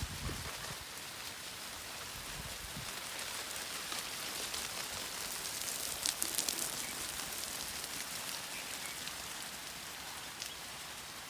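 Steady rain falling, an even hiss, with a few sharper taps about six seconds in.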